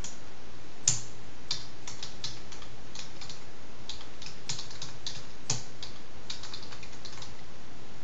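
Typing on a computer keyboard: irregular keystrokes with short pauses, a sharper key press about a second in and another about five and a half seconds in, stopping shortly before the end, over a steady background hiss.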